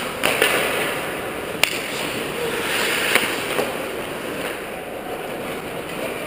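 Ice hockey play on a rink: a steady scraping hiss of skates on the ice, broken by three sharp clacks of sticks and puck, about a third of a second, a second and a half, and three seconds in.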